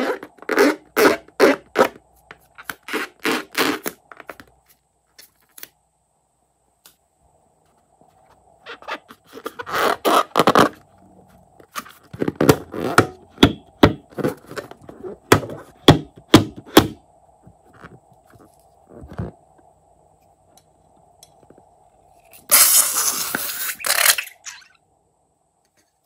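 Hands rubbing and squeezing a liquid-filled rubber balloon, the rubber squeaking and scraping in short strokes. Near the end comes a loud rushing noise lasting about two seconds.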